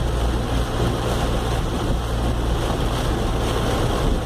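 Car driving through a flooded street in a heavy tropical downpour: a steady rush of rain and splashing water over a low, steady engine hum.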